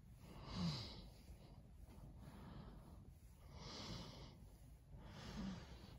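Three breathy snorting exhales, the first and loudest about half a second in, the others near four and five and a half seconds; the first and last carry a short low grunt.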